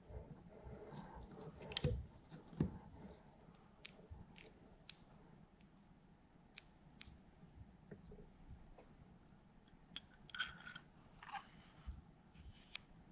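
Handling noise of small plastic and metal parts: scattered clicks, taps and scrapes as an 18650 lithium-ion cell is pressed into a portable charger's plastic cell holder and slid into its aluminium tube. Two louder knocks come about two seconds in, and a short scraping rattle past the middle.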